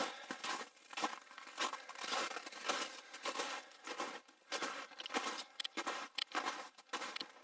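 Footsteps crunching in snow, about two steps a second, in a steady walking rhythm.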